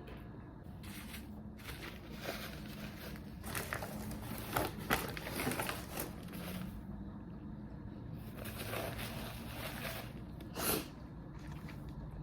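Eating and food-handling noises: irregular crackles and crinkles of fast-food packaging and food, busiest in the middle with a sharper crackle near the end.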